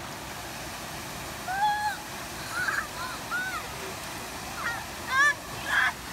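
Children's short, high shouts and squeals while playing in a river, over the steady rush of the flowing water.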